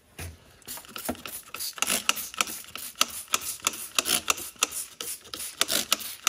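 Hand trigger spray bottle pumped rapidly, each squeeze a click with a short hiss of water spray onto wet-or-dry sandpaper, about three squeezes a second, starting under a second in.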